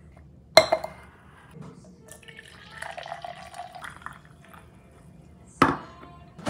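A sharp clink from the ceramic pitcher's metal lid about half a second in, then a dark drink is poured from the pitcher into a tall glass for a few seconds, and the pitcher is set down on the stone countertop with a knock near the end.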